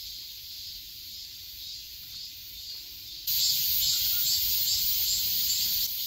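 Steady, high-pitched hiss of a summer insect chorus in woodland, growing louder about three seconds in.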